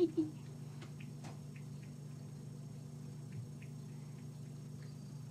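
Steady low hum of room tone, with a few faint scattered ticks; the tail of a voice is heard right at the start.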